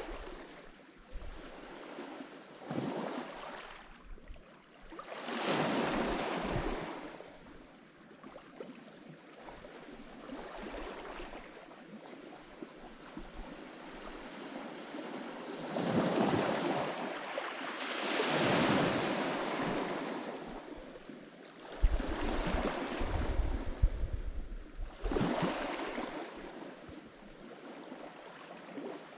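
Lake Michigan waves breaking and washing onto the shore in repeated surges every few seconds, the loudest washes near the middle. Low buffeting of wind on the microphone comes in during the second half.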